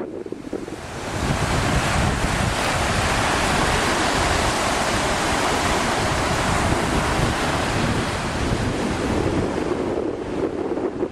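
Sea surf washing with wind buffeting the microphone: a broad rush that swells about a second in and eases near the end, over a gusty low rumble.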